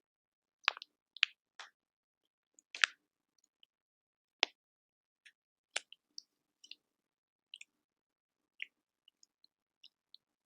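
Quiet ASMR crackles: sparse, irregular small clicks and crackling snaps close to the microphone, with silence between them. The loudest few snaps fall in the first half.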